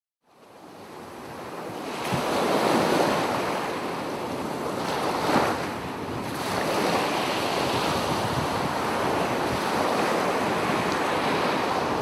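Ocean surf breaking and washing, fading in from silence, swelling a couple of times, then holding steady before cutting off suddenly.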